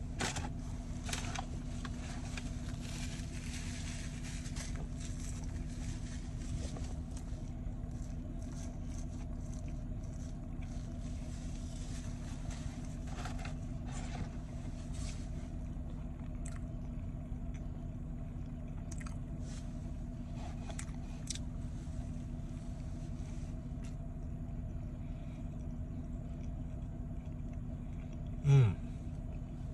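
A person chewing a fish sandwich with soft mouth clicks and faint crackles, over a steady low hum in a car's cabin. Near the end there is one short, loud vocal sound.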